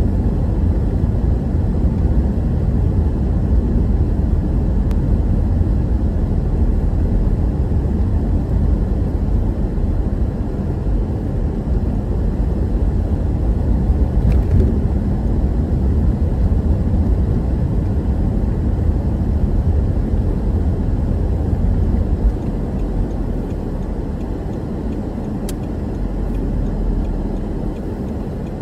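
Road noise inside a moving car's cabin: a steady low rumble of tyres and engine, easing off somewhat about 22 seconds in as the car slows.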